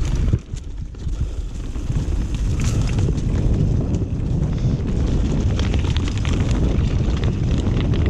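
Wind buffeting the microphone of a camera on a mountain bike riding along a singletrack trail, with tyre noise and the bike rattling and clicking over bumps. The sound drops briefly just after the start, then runs steady and loud.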